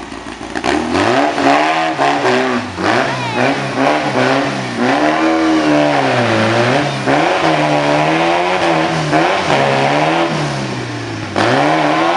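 Off-road trial buggy's engine revving up and down again and again as it works through deep ruts and over dirt mounds. It gets loud about a second in and swells again near the end.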